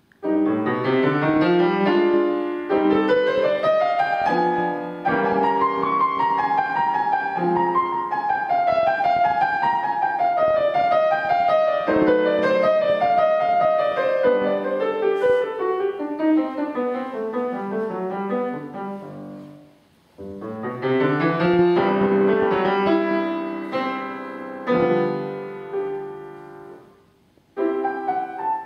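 Grand piano played solo: a piece in flowing phrases, the melody rising and falling, pausing briefly twice, about two-thirds of the way through and again just before the end.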